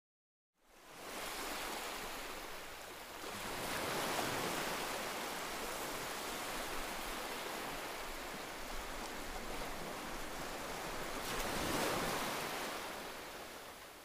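Small surf waves breaking and washing over shallow water at the shoreline, a steady rushing wash. It swells a few seconds in and again near the end, then fades out.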